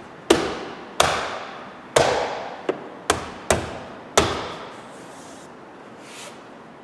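A fist thumping a car door's plastic inner trim panel seven times over about four seconds, each blow ringing on briefly in an echoing room. The panel is being knocked home so its clips seat in the door.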